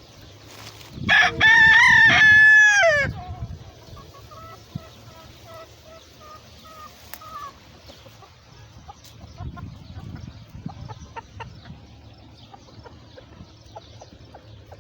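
A rooster crows once, loud, about a second in, the call ending in a falling slur. Hens follow with soft, repeated clucking.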